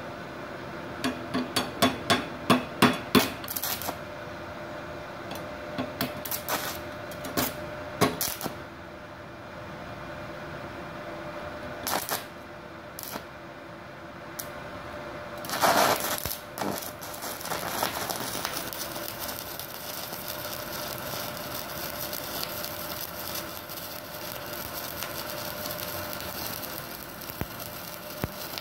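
Stick-welding arc from a 2.6 mm electrode at about 63 amps on an inverter welder. For the first half there are sharp clicks and short sputters as the electrode is tapped and scratched against the steel to strike the arc. After about 18 seconds the arc catches and burns with a steady crackling hiss.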